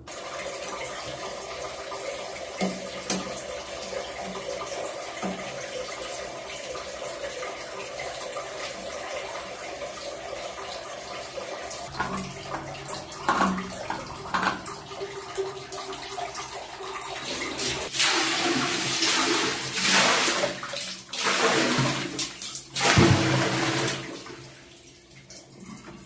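Water running into a toilet cistern, then poured in by hand in several loud gushes in the last third, to fill the tank for a test flush because the supply flow is weak.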